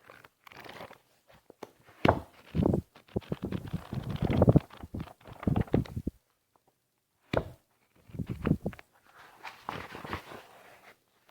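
Sheets of paper being handled, rustling and crinkling in irregular bursts with sharp crackles; after a pause of about a second the handling resumes, growing softer near the end.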